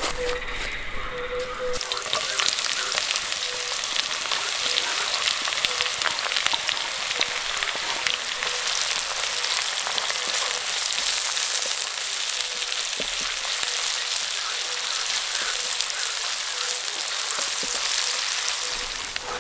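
Food frying in a hot pan: a steady, dense sizzle and crackle that fades near the end.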